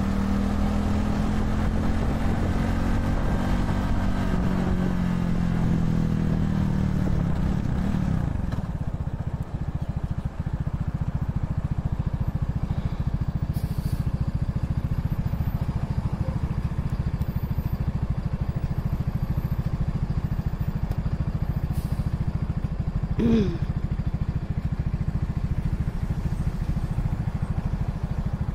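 Vitacci XMT 250 motorcycle engine as the bike slows to a stop: its note shifts and drops over the first several seconds, then it idles steadily at a standstill. A brief squeak sounds about two-thirds of the way in.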